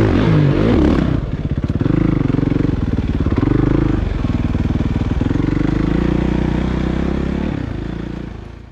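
Suzuki RMX450Z's single-cylinder four-stroke engine revving for about the first second, then running at low revs with a distinct firing beat and small rises and falls in pitch. It fades away near the end and cuts off.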